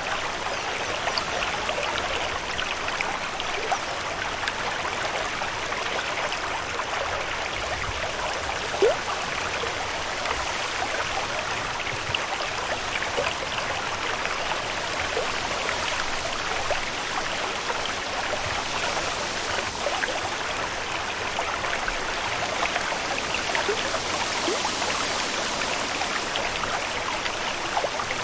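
Continuous water ambience: steady trickling with many small droplet sounds, and one louder drop about nine seconds in.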